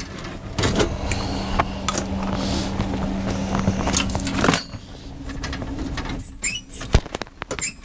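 Clicks, taps and scraping of hand tools working on the metal tubing and fittings at the back of an RV absorption refrigerator. A steady low hum runs under them and stops sharply about halfway through. A few short high squeaks and one sharp knock come near the end.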